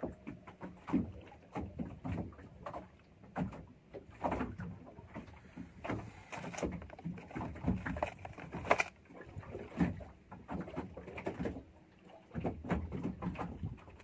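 Irregular knocks, taps and handling noises as fishing line and a hook are rigged by hand aboard a small boat, over the low lapping and creaking of the boat on the water.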